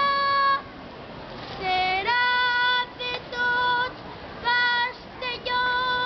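A boy's solo voice singing the children's pregó (festival proclamation) in five short phrases of long held notes at nearly one pitch, the second phrase sliding up into its note.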